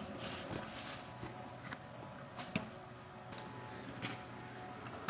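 Kick scooter rolling on a concrete driveway: a few sharp clicks and knocks from the small wheels and deck over a steady, faint outdoor hiss.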